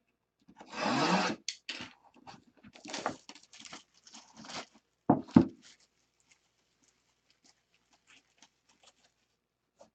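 Shrink-wrap being cut and torn off a sealed trading-card box, with a long tearing rip about a second in and crinkling plastic after it. Two sharp knocks come a little after five seconds, then only faint small clicks.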